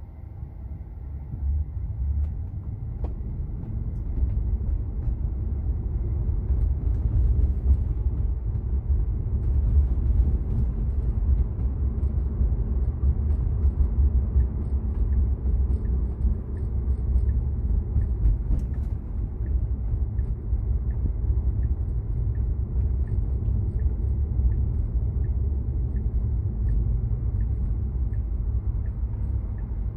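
Road and tyre rumble inside a Tesla's cabin while driving, a steady low rumble that builds slightly in the first few seconds. In the last third, a faint, evenly spaced ticking runs over it.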